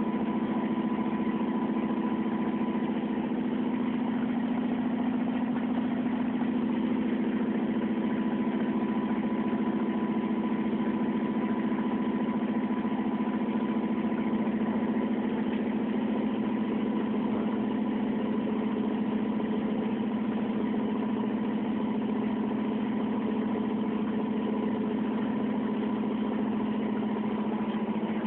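Electrolux LTA15 top-load washing machine on its spin cycle at up to 1000 rpm: a steady hum with a thin whine from its direct-drive motor, which has no belt, pulleys or start capacitor.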